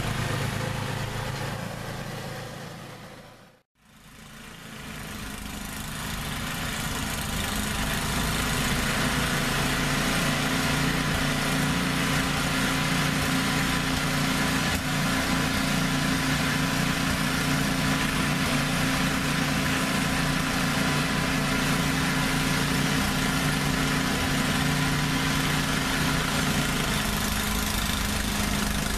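Gasoline snowblower engine running steadily over a steady hiss. The sound fades out to silence and back in about four seconds in, and the engine's pitch dips slightly near the end.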